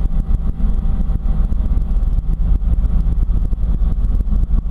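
Robinson R44 helicopter rotor and engine heard from inside the cabin in a practice autorotation, engine throttled back to simulate an engine failure: a loud, steady low drone with a fast, even blade beat.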